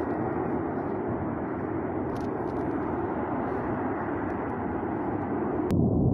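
Natural gas burning off from a ruptured high-pressure pipeline, a steady low rushing noise with no let-up. Near the end it switches abruptly to a louder, deeper rumble of the same kind.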